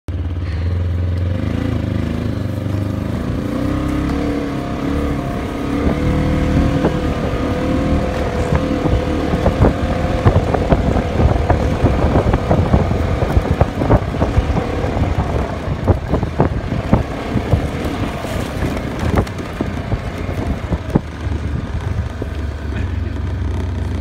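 A motor vehicle's engine running as it drives, its pitch wavering up and down over the first several seconds. From about nine to twenty seconds in come frequent knocks and rattles.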